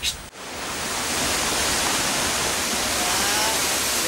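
Waterfall rushing steadily, fading in just after a short high-pitched burst at the start. A few short whistled calls come through near the end.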